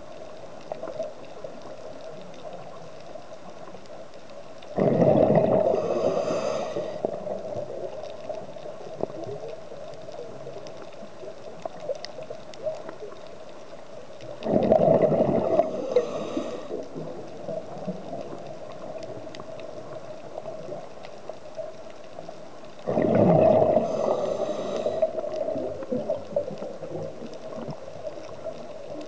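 A scuba diver's exhaled bubbles rushing out of the regulator, recorded underwater: three breaths about nine seconds apart, each starting suddenly and fading over a couple of seconds, over a steady hum.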